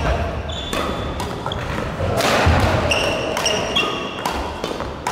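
Badminton rackets striking shuttlecocks in a quick string of hits, smashes and returns about one to two a second, with short shoe squeaks on the wooden gym floor.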